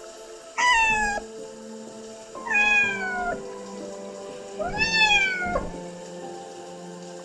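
An animal calling three times, each call drawn out for about a second and falling in pitch, over soft background music with long held notes.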